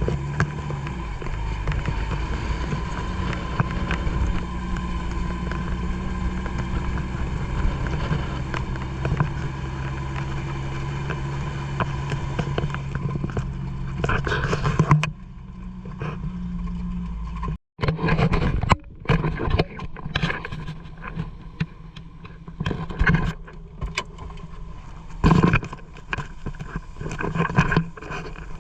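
A vehicle engine running steadily as a low drone. About two-thirds of the way through it breaks off and gives way to scattered knocks and short uneven bumps.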